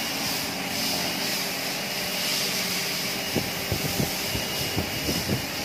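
Manual metal lathe running, its chuck spinning while a threading tool cuts the internal thread of a nut: a steady whirring hiss with a faint high whine, and irregular light ticks from about three seconds in.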